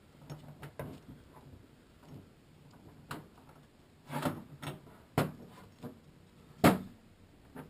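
Metal transaxle parts being handled during a teardown: a scatter of separate clicks and knocks, the loudest about two-thirds of the way through.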